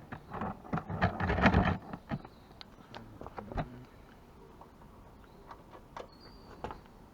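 Metal clatter and clicks from a socket and breaker bar on the motorcycle's swing-arm pivot bolt nut as it is tightened. A dense burst of clinks comes in the first two seconds, then a few single clicks.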